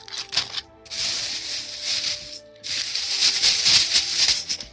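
Rustling of items being handled, two long stretches of hissy rustle with a short break between them, over faint background music.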